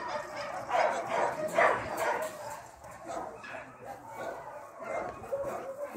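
Small dog barking in short, sharp yaps, two loud ones close together about a second in, then fainter, scattered yips.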